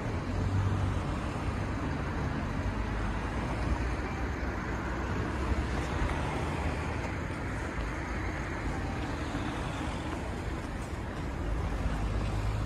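Steady city street traffic noise: a continuous low rumble and hiss of passing road vehicles.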